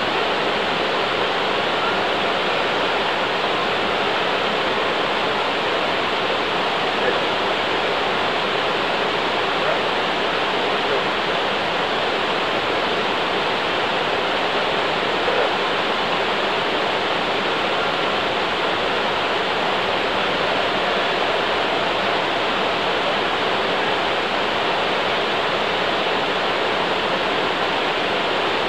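Small waterfall cascading over rock ledges, a steady rush of falling water that does not change.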